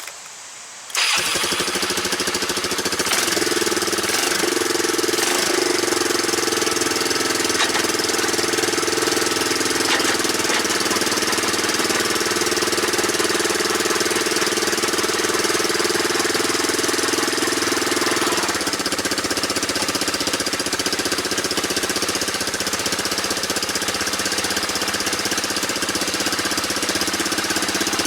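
1987 Yamaha Moto-4 YFM225 ATV's single-cylinder four-stroke engine starting about a second in and running steadily in drive, spinning the rear axle to test the freshly adjusted rear brake for drag. Its note changes and drops about two-thirds of the way through.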